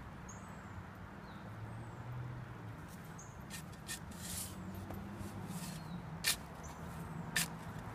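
Steel shovel blade being driven into dry, clumpy clay soil to dig a planting hole, giving several sharp scraping strikes, the loudest two near the end. A few short bird chirps and a low steady hum are also heard.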